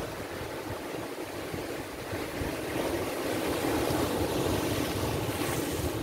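Atlantic Ocean surf breaking and washing over shoreline rocks, a steady rush that swells to a louder break about halfway through.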